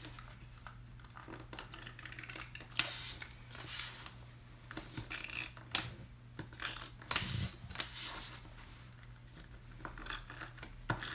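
Black cardstock being handled, folded and pressed flat: scattered rustles and sharp taps, with a short run of rapid clicks about two seconds in.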